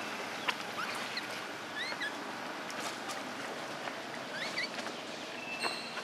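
Steady outdoor background hiss, with a few short high chirping calls and occasional sharp clicks. The sharpest click comes about half a second in.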